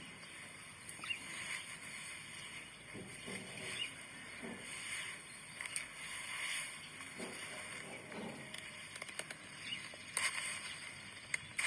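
Faint scraping, rustling and small clicks of a grafting knife shaving a walnut scion and the scion being fitted into a cleft in the trunk.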